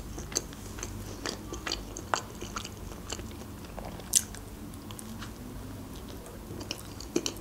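Close-miked chewing and biting of a small homemade pizza: scattered soft wet mouth clicks and smacks, with one louder click about four seconds in.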